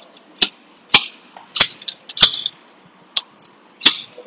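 Six sharp metal-on-metal taps at uneven intervals, each ringing briefly: tools striking the old rear seal of a CVT transmission case to knock it out.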